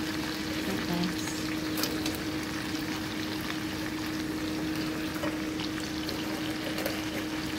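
Blue swimmer crabs sizzling and steaming in a hot pot, cooking dry before any coconut milk goes in: a steady hiss with scattered crackles over a steady low hum.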